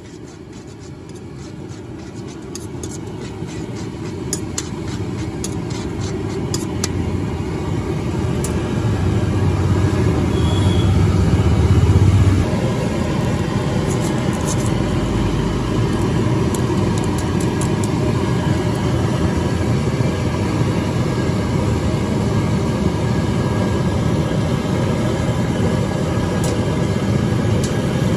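Steady low rumble of a street-food wok stall, growing louder over the first dozen seconds and then holding, with light metal clicks now and then from a spoon and cutter working in the aluminium wok of boiling noodles.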